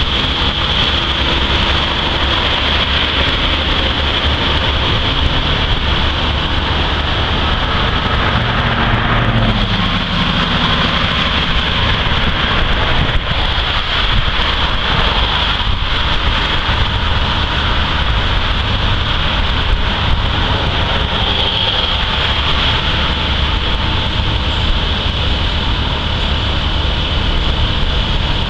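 Intermodal freight train rolling past below: a steady low rumble of wheels on rail with a constant high hiss over it.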